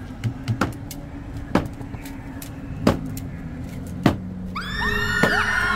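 Street ambience with a steady low hum and a few scattered clicks and knocks. About four and a half seconds in, a dense swirl of sweeping, whistling glides starts suddenly: an added electronic sound effect or music.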